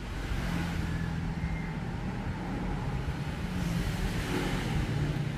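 A motor vehicle's engine running: a steady low hum with a haze of road noise, swelling a little around the middle.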